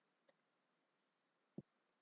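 Near silence: room tone, with two faint short clicks, the second, about one and a half seconds in, a little stronger.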